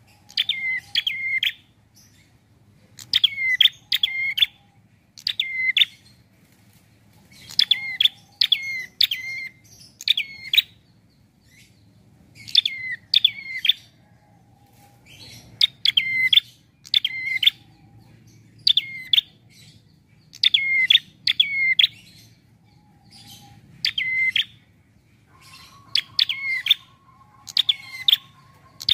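Caged prenjak singing: quick bursts of two to four sharp chirps that rise and fall in pitch. The bursts repeat every second or two with short pauses between them.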